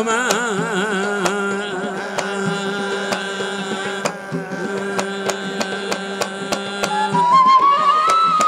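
Hadrami zarbadi folk music. A sung note wavers and fades in the first half second. A long steady drone note then holds under regular drum strikes, and about seven seconds in a flute melody enters.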